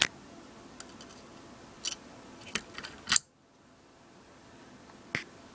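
Light metal-on-metal clinks as the steel spindle shaft and its bearing are handled and set into the spindle housing of a PM-25 mill: a few scattered clicks, the loudest about three seconds in.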